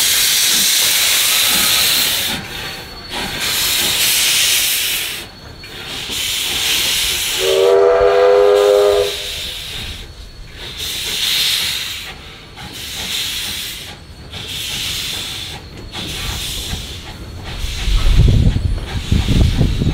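Victorian Railways Y class steam locomotive Y 419 moving off slowly with its cylinder drain cocks open, each exhaust beat a loud hiss of steam, spaced a second or two apart. A short steam whistle blast sounds about eight seconds in, and a low rumble comes in near the end.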